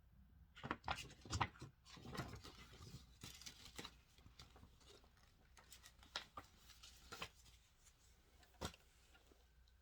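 Faint handling noises from unboxing a SodaStream Fizzi: irregular clicks and rustles of plastic parts and packaging, busiest about a second in, with one sharp click near the end.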